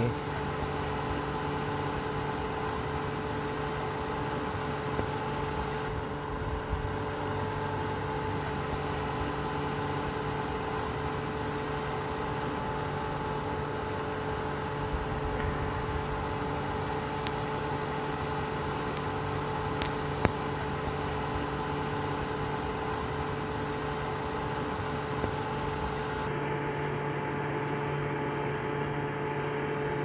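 Cheap Hyper Tough utility space heater overloaded on 240 V, about 3.5 times its rated power, running with a steady electrical hum from its fan and a few faint ticks. The fan motor is being driven at double its rated voltage.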